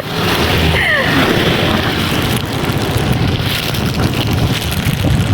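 Wind buffeting the microphone over a steady low rumble. A short voice cry sounds about a second in.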